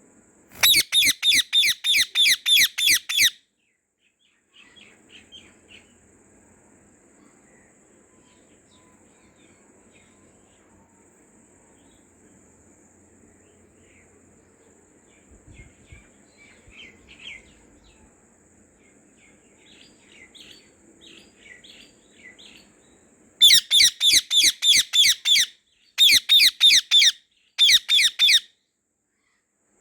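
White Indian ringneck parrot calling in loud runs of shrill, rapidly repeated notes, about four a second. One run comes near the start and three come in close succession near the end, with soft scattered chirps between them.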